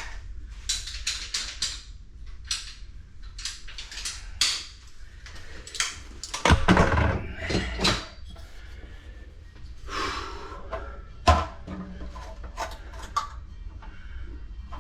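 Clinks, clicks and knocks of metal tools and parts being handled and set down during plumbing work, over a steady low hum. The heaviest knocks come in a cluster between about six and eight seconds in, with one sharp knock about eleven seconds in.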